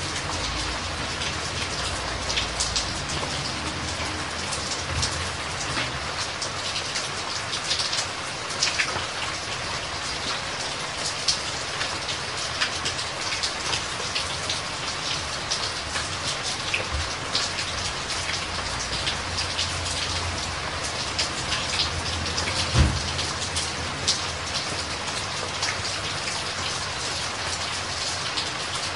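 Steady pattering water noise, dense with small drips and splashes, with a single dull low thump about 23 seconds in.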